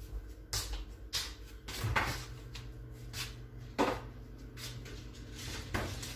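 Kitchen handling noises: about five separate knocks and clacks spread over six seconds, with a low steady hum coming on about two seconds in.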